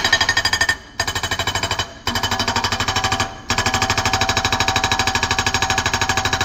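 Excavator-mounted hydraulic breaker hammering rock: rapid, evenly spaced blows in four runs, with brief pauses just under a second in, around two seconds in and around three and a half seconds in.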